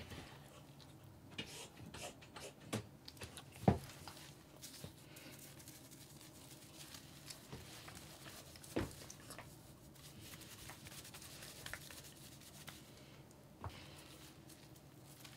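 Faint rubbing and scattered small knocks of hands lathering and washing a cat's fur, with two sharper knocks about four and nine seconds in.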